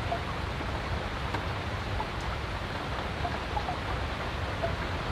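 Steady rain falling on the river and the fishing platform, an even hiss with faint scattered drop ticks.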